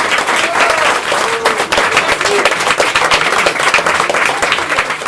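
Audience applauding, a dense run of clapping that starts to thin out near the end.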